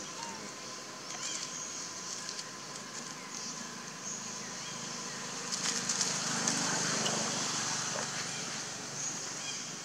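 Outdoor ambience in dry woodland: a steady high insect drone with a few short chirping calls, and a stretch of crackling and rustling, as over dry leaves, about five and a half seconds in.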